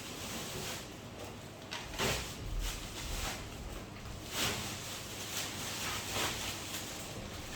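Scattered light knocks, taps and short scrapes of hands working on a TV's parts with tools, about half a dozen in all, over a steady hiss.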